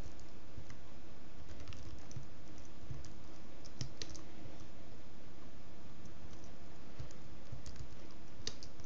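Typing on a computer keyboard: irregular key clicks in short runs, over a steady low hum.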